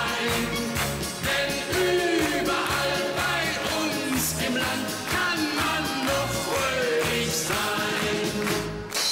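Upbeat schlager polonaise medley: a band playing with a bouncing bass line, with voices singing along.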